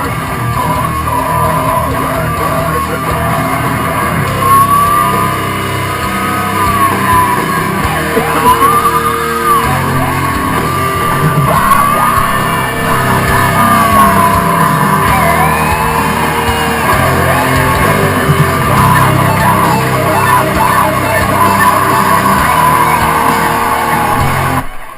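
A rock song playing loud, with a sung and yelled lead vocal over the band, cutting off suddenly near the end.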